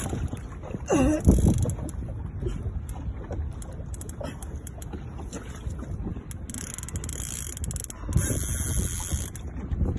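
Wind buffeting the phone microphone over open water, a steady low rumble. A short pitched sound, like a brief call, comes about a second in, and two short bursts of high hiss come near the end.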